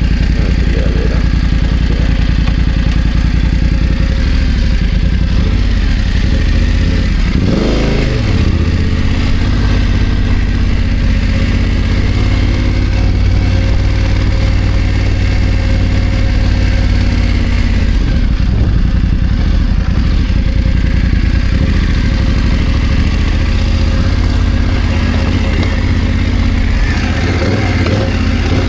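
BMW F 900 GS parallel-twin motorcycle engine running under way, loud and continuous, with the revs changing briefly about eight seconds in.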